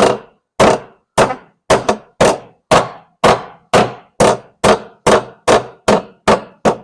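Hammer striking the pushed-up sheet-steel jacking point and footwell of a Ford Sierra Sapphire Cosworth, beating the deformed metal back flat. It is a steady run of about fifteen blows, roughly two a second, each with a short metallic ring.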